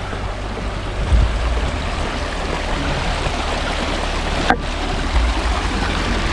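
Small alpine creek rushing and splashing over rocks and little cascades, a steady close water noise, with low wind rumbles on the microphone twice.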